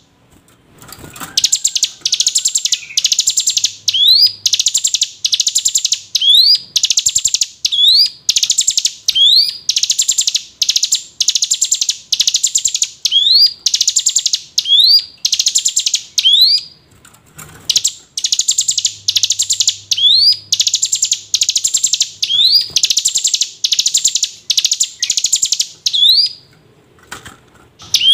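Ciblek gunung (hill prinia) singing over and over. Each phrase is a quick rising slur followed by one or two harsh buzzy notes, about a phrase a second, with brief pauses twice along the way. This is a call used as a lure to set captive birds singing.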